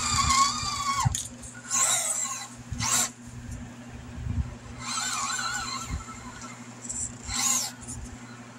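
Electric drive motor of a 1/18-scale Furitek Fury Wagon RC crawler whining in short throttle bursts that rise and fall in pitch as it climbs over rock, with a few low knocks from the tyres and chassis on the stones.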